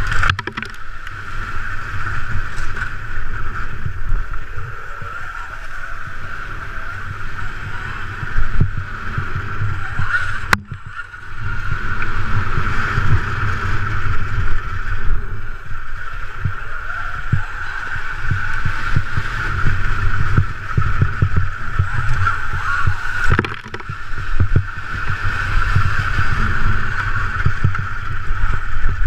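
Ride noise on an electric Honda CRF250R conversion crossing rough grassy ground: uneven rumble and buffeting, with a steady high whine and no engine note. A sharp click about ten seconds in.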